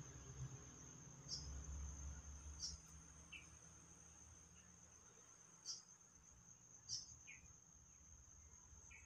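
Crickets trilling: one steady high-pitched buzz throughout, with a few short chirps over it, and a faint low rumble in the first few seconds.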